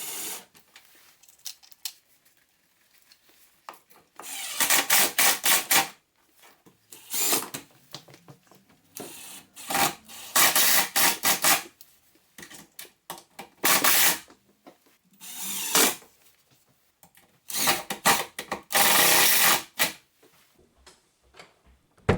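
Power drill running in short bursts, about seven runs of half a second to two seconds with pauses between, driving screws to fit a door hinge.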